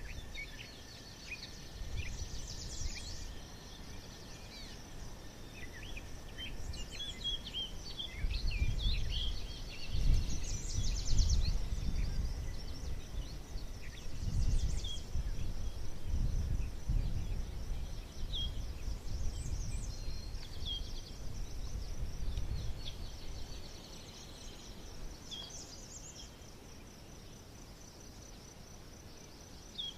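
Forest birds singing, with scattered chirps and trills over a steady high insect buzz. A low rumble swells up through the middle and is loudest around ten seconds in.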